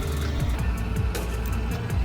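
Background music with a steady bass and regular percussion hits.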